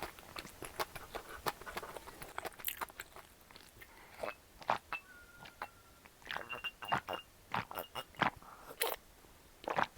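Close-miked eating sounds from a tteokbokki meal: crunchy bites and chewing, made up of many quick crackling clicks, with a few brief light clinks in the middle.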